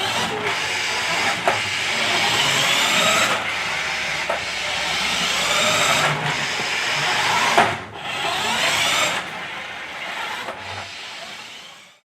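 Small electric motor of a remote-control toy car whining, rising and falling in pitch as the car speeds up and slows, with a few sharp knocks as it bumps into things. The sound cuts off abruptly near the end.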